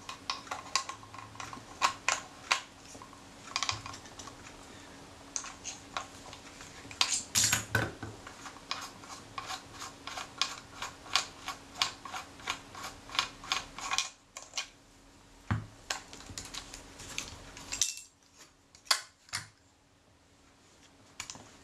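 Irregular light metallic clicks and taps as a spanner works the mount of a Kodak Retina IIIc's shutter and lens assembly and the small metal parts are handled, over a faint steady hum. The clicking thins out in the last several seconds.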